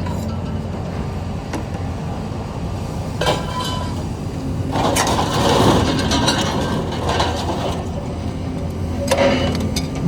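Pieces of scrap metal clanking and clattering as they are handled and set down, in bursts about three seconds in, for a few seconds in the middle, and again near the end, over a steady low hum.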